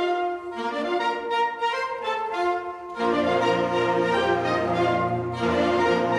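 Large saxophone ensemble, soprano through baritone saxophones, playing a sustained melodic arrangement. About halfway through, low bass notes come in and the sound becomes fuller and louder.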